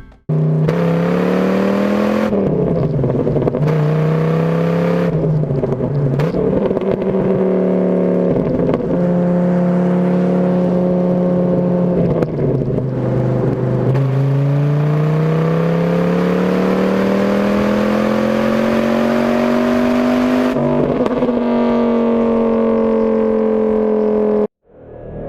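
High-performance car engine at wide-open throttle in a roll race, its pitch climbing and dropping back at several gear shifts, then rising steadily through one long pull before cutting off abruptly near the end.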